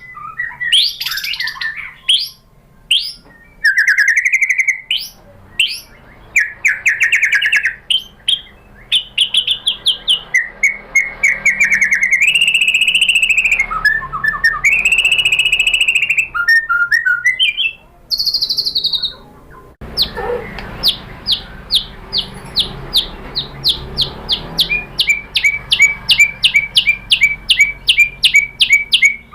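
White-rumped shama (murai batu) singing: varied whistles, slurred phrases and trills, then, about twenty seconds in, a long run of short repeated notes that speeds up near the end.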